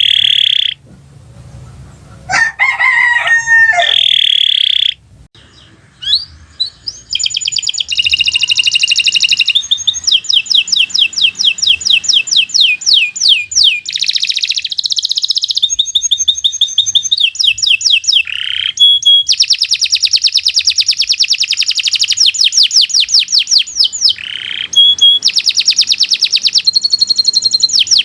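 Domestic canary singing: rapid trills and rolls of quickly repeated high notes, broken into short phrases with pauses for the first several seconds, then almost unbroken song.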